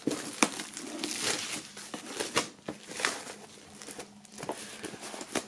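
Plastic shrink wrap crinkling and crackling as it is pulled off a cardboard box, with a few sharp clicks scattered through.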